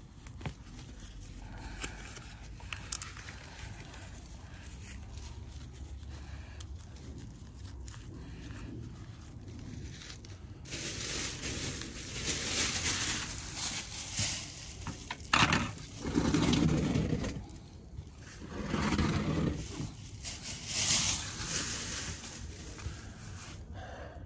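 Black plastic bin bag crinkling and rustling in irregular bursts as dry leaves and twigs are stuffed into it, after a quieter stretch of light scratching as gloved hands gather the debris off the soil.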